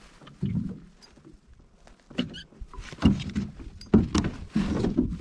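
Water splashing and knocking against the side of an aluminum boat as a large hooked sturgeon thrashes at the surface beside it, in irregular bursts with the biggest splashes about three and four seconds in.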